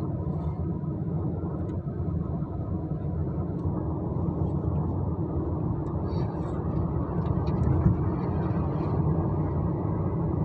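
Steady low engine and road rumble heard from inside a car that is driving along.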